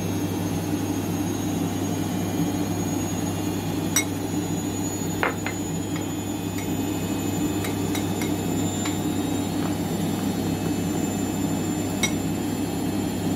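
Kitchen dishes and utensils clinking a few times: sharp clicks about four and five seconds in, some fainter ones, and another near the end, over a steady low hum.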